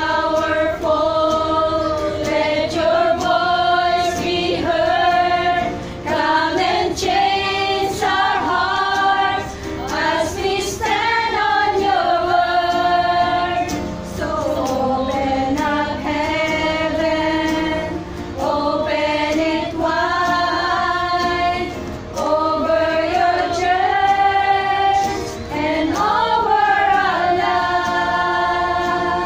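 A small group of women singing a worship song together, with an acoustic guitar accompanying them, in sung phrases of a few seconds each with short breaths between.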